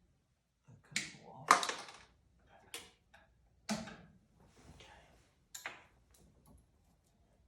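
Handling of electrical wires and wire caps: a string of about six sharp clicks, taps and rustles with short gaps between them, as the white wires are prepared for splicing.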